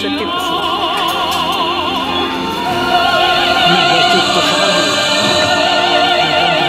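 Background music: a classical-style singer holding long notes with a wide vibrato over an instrumental accompaniment, a little louder from about three seconds in.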